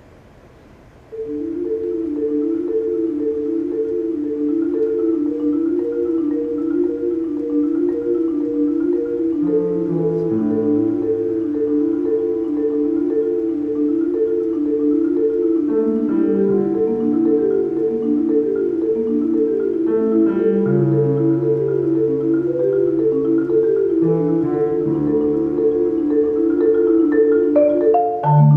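Concert marimba played with four mallets in a fast, even repeating pattern of notes, starting about a second in, with a piano accompaniment adding lower held notes and chords from about ten seconds in; a quick rising run comes near the end.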